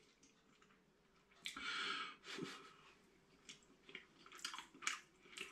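A person quietly chewing a mouthful of chicken and rice, with a breath about a second and a half in and faint small mouth clicks near the end.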